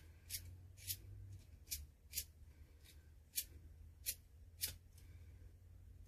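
Steel flint wheel of a Zippo fire-starting multi-tool being flicked against its flint: about eight quick, sharp rasps at uneven intervals. The wheel is being turned the wrong way, by his own account.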